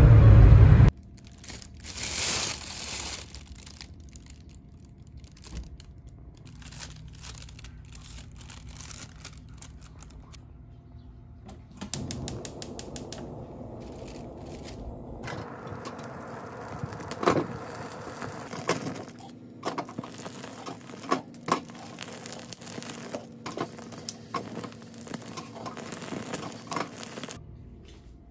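Grilled squid being torn and handled: crackly tearing and crinkling with many scattered sharp clicks, busiest in the second half.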